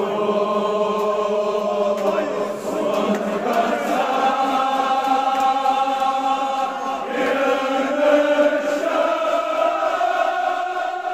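A group of men's voices chanting a Kashmiri marsiya (mourning elegy) together in long, held notes that shift pitch every few seconds.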